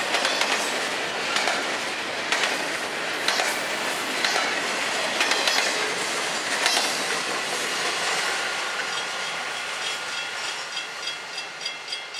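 Freight train's double-stack intermodal well cars rolling past, steel wheels clicking over rail joints. As the last car goes by near the end, the train noise fades and a grade-crossing warning bell comes through, ringing about three times a second.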